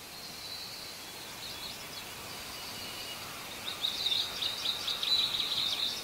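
Birds chirping over a steady background hiss. In the second half a quick run of high chattering calls comes in, louder and busier than the scattered chirps before it.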